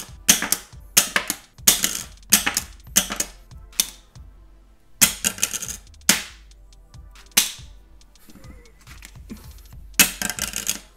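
KOHO metal card, made of painted metal alloy, dropped again and again onto a hard surface. Each drop is a sharp clink followed by a quick bounce or two and a short metallic ring. It goes quieter for a couple of seconds near the end before one last drop.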